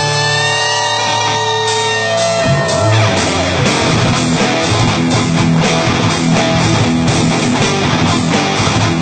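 Electric guitar playing a fast rock instrumental: held notes for about the first two and a half seconds, then quick runs of notes.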